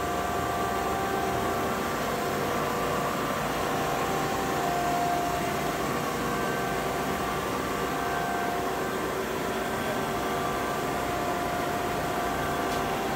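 Steady mechanical hum with several whining tones that swell and fade slightly: a large vertical turret lathe's drive motor and gearing running.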